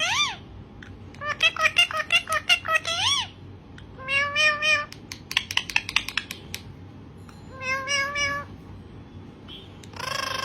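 Green parrot vocalising: a quick run of chattering notes ending in a rising whistle, then a few drawn-out meow-like calls with clicking sounds between them.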